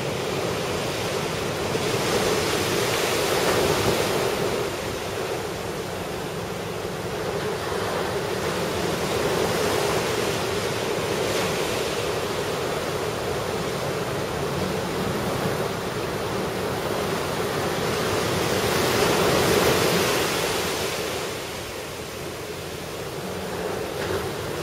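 Ocean surf from a typhoon swell breaking and washing in: a continuous rush of waves that swells louder twice, a few seconds in and again about three-quarters of the way through.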